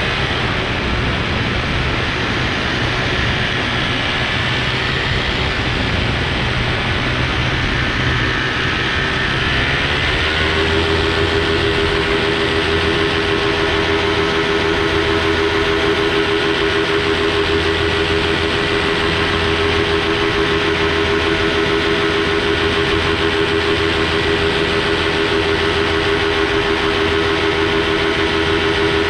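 Paramotor engine and propeller running steadily in flight. About ten seconds in the revs rise a little, then hold at the higher pitch.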